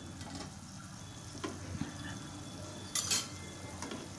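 Thin masala gravy, just loosened with water, sizzling gently in a steel frying pan, with a few light metallic clinks of the steel spatula against the pan, the loudest about three seconds in.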